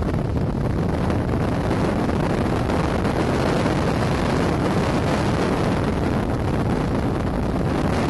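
Steady rush of air streaming past a glider in unpowered flight, with wind buffeting the microphone; a dense, even rushing noise, heaviest in the low range.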